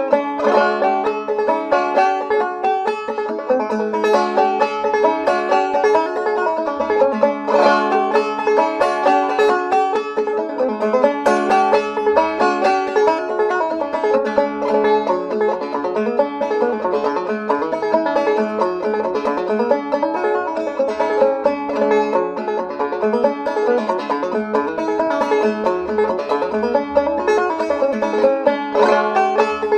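Fast instrumental old-time string music, a banjo picking quick running notes over a steady beat.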